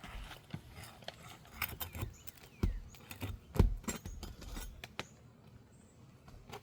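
Nails being worked loose and pulled from Elk Prestique architectural asphalt shingles: scattered clicks, scrapes and knocks, the loudest knock about three and a half seconds in, then quieter after about five seconds.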